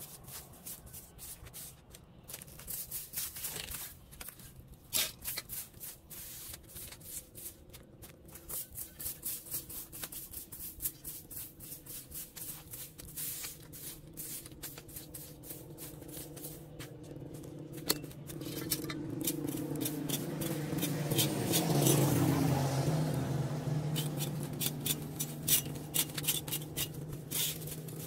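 Plastic push broom sweeping dry leaves and grit across concrete in quick, repeated strokes. An engine passes in the second half, growing louder to a peak about two-thirds of the way through, then fading.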